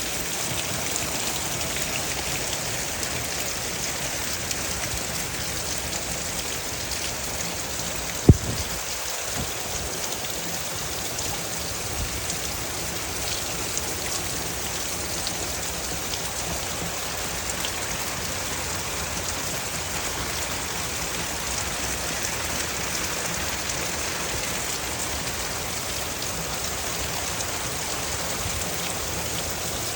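Steady rain falling, an even patter of drops throughout, with one sharp knock about eight seconds in.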